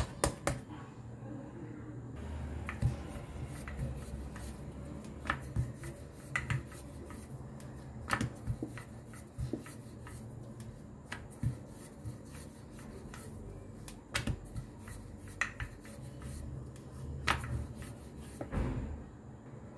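Wooden rolling pin rolling out potato dough on a floured countertop: a low rumble in stretches, with scattered clicks and knocks as the pin goes back and forth.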